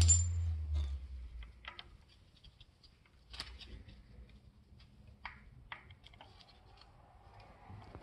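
A steady motor hum dies away within the first second. After it come scattered light metallic clicks and clinks from hand tools and small steel parts on the engine's timing gear.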